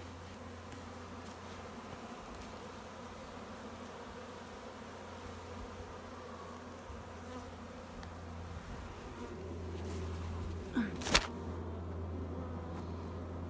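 A honeybee swarm clustered on a stick buzzing steadily at close range, a little louder near the end. A sharp knock about eleven seconds in.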